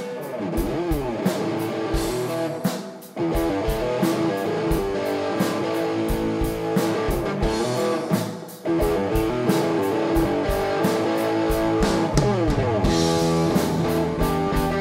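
Live blues band playing an instrumental passage: electric guitar with bending notes over drum kit and bass guitar. The band drops out briefly twice, about three and eight and a half seconds in, then comes back in.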